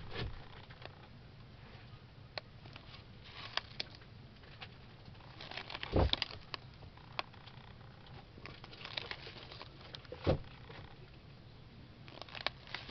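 Paper pages of a ring-bound catalog being turned by hand: rustling and crinkling with scattered light ticks, and two soft thumps as pages flip over, the louder one about six seconds in and another about ten seconds in.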